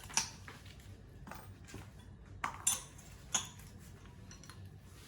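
Several short metallic clinks and knocks, one just after the start and three close together between about two and a half and three and a half seconds in, some with a brief ring.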